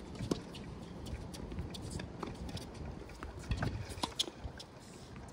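A few scattered sharp knocks of tennis balls being struck and bouncing on a court, over a steady low rumble.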